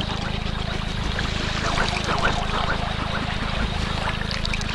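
Electroacoustic music built from processed and looped field recordings: a steady low drone under a dense scatter of small crackles and ticks.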